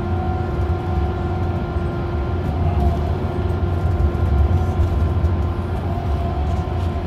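Inside a moving bus: steady low engine and road rumble, with a faint steady whine of higher tones over it.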